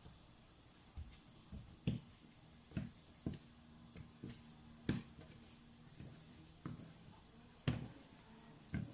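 Irregular soft thumps and taps, roughly one a second, of hands handling and pressing pizza dough on a floured work surface.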